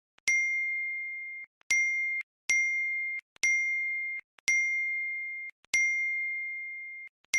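A small bell dinging about seven times at an uneven pace. Each clear, high ring is cut off short before the next strike.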